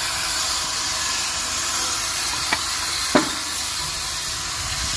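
Steam tank locomotive (1956 Fablok-built PKP class TKp 0-8-0T) standing in steam, giving off a steady hiss, with two sharp knocks about two and a half and three seconds in.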